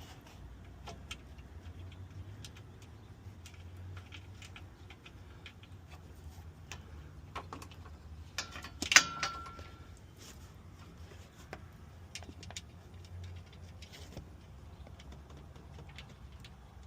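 Scattered light metallic clicks and clinks of hand tools and mounting hardware while a truck's A/C condenser is fitted. One loud metal clank rings briefly about nine seconds in.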